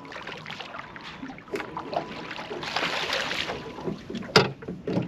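A threadfin salmon being landed in a small boat: splashing and the fish and gear knocking about, with one sharp, loud knock about four seconds in.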